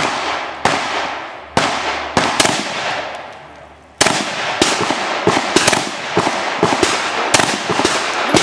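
A string of pistol shots fired from cover, about two to three a second, with a pause of about a second and a half partway through before faster shooting resumes. Each crack rings out briefly before the next.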